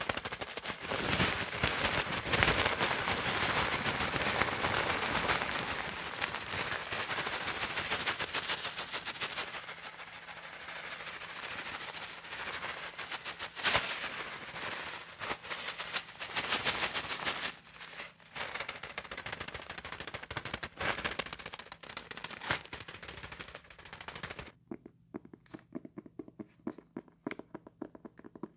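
Comb teeth raked across calendar paper, a dense rapid crackle of clicks. A few seconds before the end it drops to quieter, separate small ticks.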